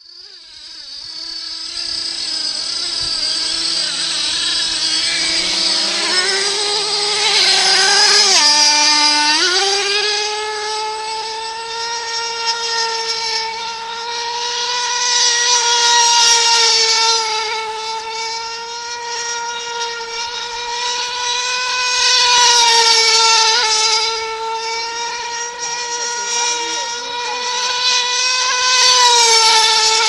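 DJI Phantom quadcopter's motors and propellers whining steadily in flight. The pitch drops briefly about nine seconds in and climbs back, and the whine swells louder several times.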